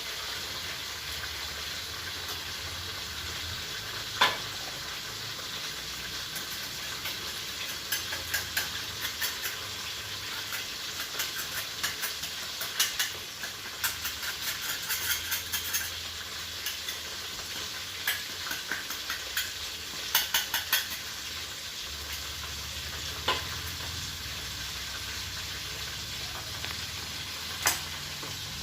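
Food frying in hot oil in a pan and being stirred: a steady sizzle broken by clusters of sharp crackles and pops, with a few single clicks of the utensil on the pan.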